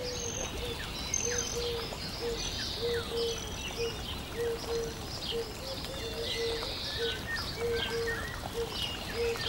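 Birds chirping and twittering, with many short high chirps and slides, over a low short note repeated about twice a second.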